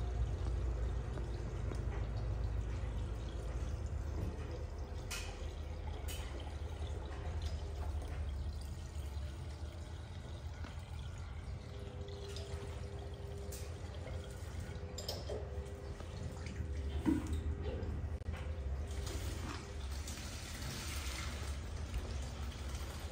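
Milk running from a steel tank tap into a plastic bucket, with a steady low hum throughout and a few short knocks.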